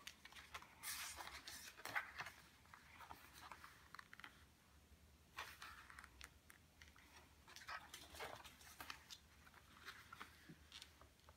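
Faint rustling and crinkling of cardstock being folded by hand along scored crease lines and pressed flat, in scattered short bursts.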